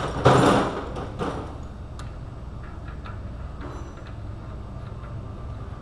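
Metal parts and tools handled at a wheel hub: a short clatter, a second smaller one about a second later, then a few light clicks over a steady low hum.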